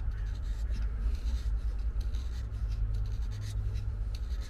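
Knife blade scraping in quick, irregular strokes, shaving off tinder to build up a pile for lighting a fire.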